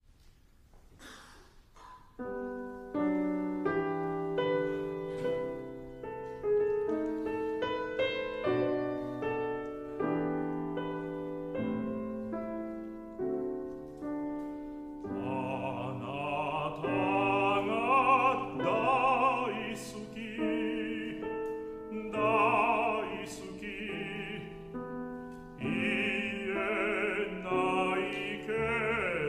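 A grand piano plays a slow introduction starting about three seconds in; about halfway through, a classically trained baritone begins singing with vibrato over the piano accompaniment.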